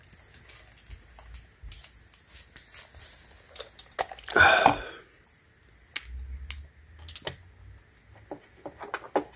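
Small clicks and rustles of hands working the e-bike's wiring, plastic plug connectors and a multimeter with its test leads, with one louder half-second rustle about four and a half seconds in.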